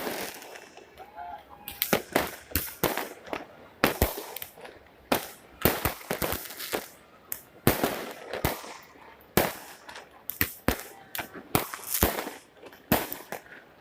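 New Year fireworks going off: many sharp bangs at irregular intervals, often several in quick succession, with short lulls between.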